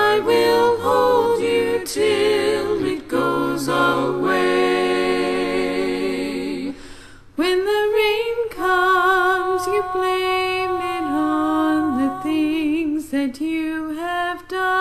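Several voices singing a cappella in harmony, with vibrato on held notes. The singing breaks off briefly about seven seconds in, then resumes.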